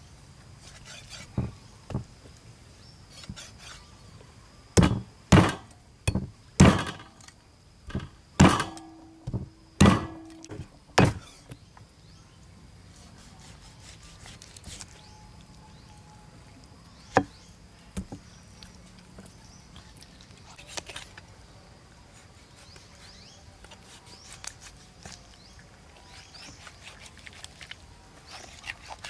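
Meat cleaver chopping through a pork leg into a thick wooden chopping board: single chops near the start, then a run of about nine heavy chops in the middle, then two more. Quieter knife cutting follows near the end.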